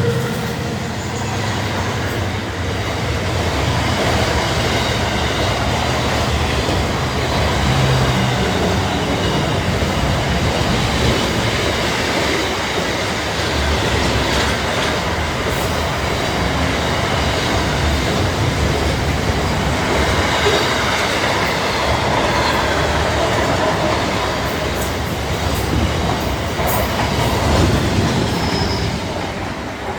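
Freight train wagons rolling past steadily, wheels clattering over the rail joints with a continuous rumble, and now and then a faint high wheel squeal.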